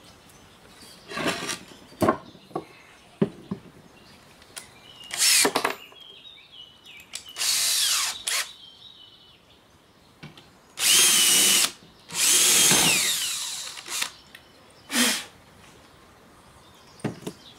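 Cordless drill drilling holes in a board, in a series of short runs with pauses between. The two longest and loudest runs come about two-thirds of the way through, the pitch falling as the motor spins down.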